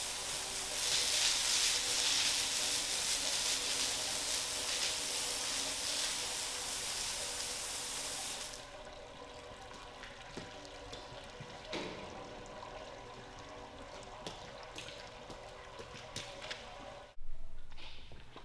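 Water spraying hard from a hose onto a concrete floor: a loud, steady hiss that cuts off abruptly about eight and a half seconds in. After it a quieter steady hum remains, with scattered knocks and taps and a short louder burst near the end.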